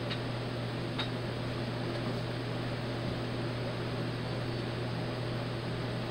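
Electric fan running steadily: a constant low hum under an even rush of moving air, with a faint click about a second in.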